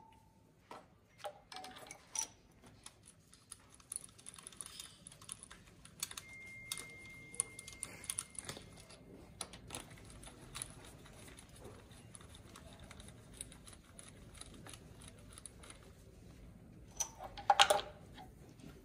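Light metallic clicks and taps of a hand tool and a brass compression-gauge hose fitting being worked on a diesel engine's cylinder head, with a short, louder clatter near the end. A thin steady whine lasts about two seconds, about a third of the way in.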